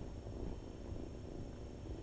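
Kittens purring together, a steady low rumble, with a brief soft thump right at the start.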